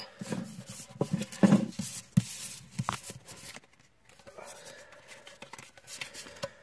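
Hands handling Pokémon trading cards and their cardboard and foil packaging: a run of light taps, clicks and rustles with a few soft knocks, then a brief lull about four seconds in before fainter rustling resumes.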